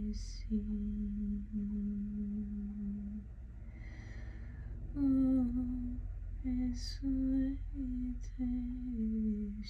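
A woman humming a slow, wordless tune in long held notes that step gently up and down.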